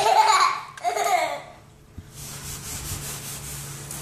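A baby's voice: two short bursts of laughing babble in the first second and a half, then a faint rubbing rustle.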